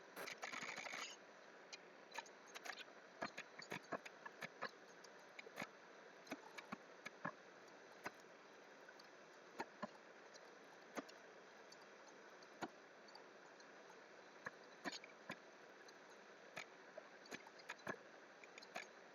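Irregular clicks and taps of a computer keyboard and mouse, with a short burst of rapid clatter near the start, over a faint steady hiss.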